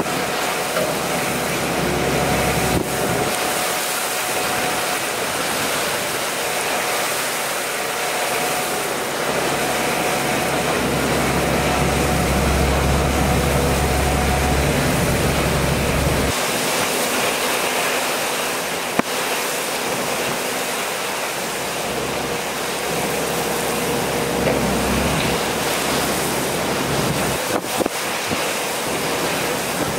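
Heavy hurricane rain and wind rushing steadily, with a low hum underneath that cuts off suddenly about sixteen seconds in.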